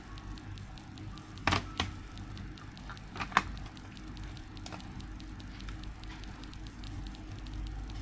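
Plastic remote controls handled over a table: a few sharp clicks and knocks, a pair about a second and a half in and another pair, the loudest, a little after three seconds, over a steady low hum with faint crackling.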